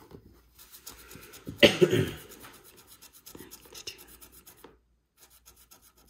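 Scratch-off lottery ticket being scratched, the coating rubbed off in short strokes. There is a louder scrape about one and a half seconds in, and quick, even strokes near the end.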